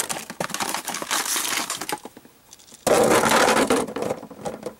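Die-cast toy monster trucks being handled and set down on a ridged plastic dirt-track playset: scraping and clattering with many small clicks, loudest for about a second and a half past the middle.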